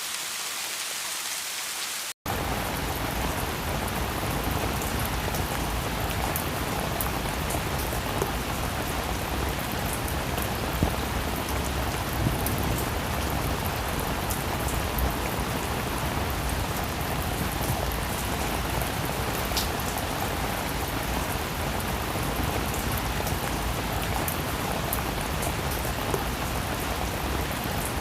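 Steady rain falling on a surface, an even hiss with scattered drop ticks. About two seconds in the sound cuts out for an instant and comes back fuller and deeper, a heavier downpour spliced in.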